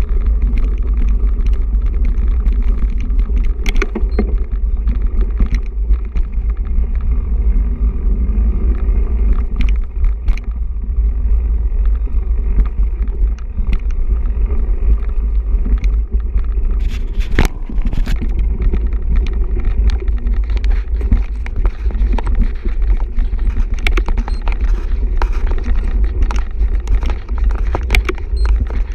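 Mountain bike ridden fast over a gravel and dirt trail, heard from a camera on the bike: a steady rumble of wind buffeting the microphone and tyre noise, with scattered knocks and rattles from the bike over rough ground, the sharpest a little past halfway.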